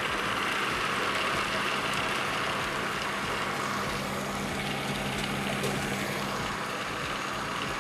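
Electric food processor running steadily, its blade chopping soaked split peas with fresh chilies and onion. The motor gives a constant hum under an even whirring noise.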